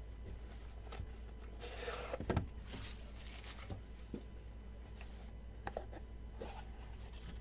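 Quiet handling of a sealed trading-card box and its wrapping as it is cut open: scattered light clicks and taps, with a brief rustling scrape about two seconds in.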